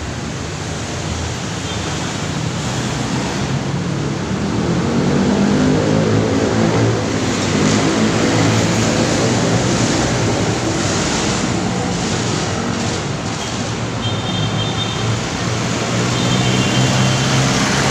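Traffic at a busy city intersection: motorcycles, cars and a bus passing close with their engines running, over a steady wash of traffic noise.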